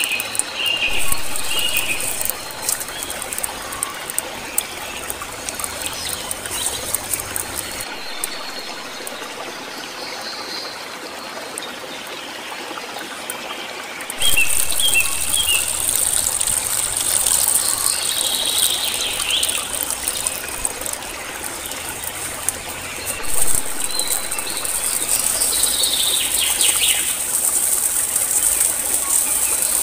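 Wood fire crackling with scattered short snaps, birds chirping and a steady high hiss in the background. The sound gets louder about halfway through.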